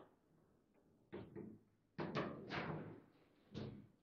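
Table football play: a run of sharp knocks as the ball is struck by the plastic players and bangs off the table, and the rods clack in their bearings, with a cluster of hits near the middle.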